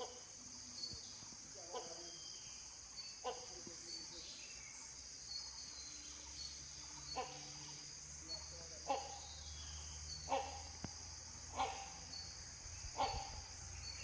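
Great hornbill calling faintly: a short, harsh, falling note repeated about every one and a half seconds, over a steady high hiss of insects.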